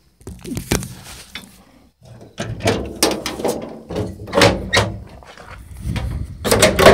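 Knocks and rubbing from the camera being handled and carried, then the van's back door clunking open near the end, the loudest knock.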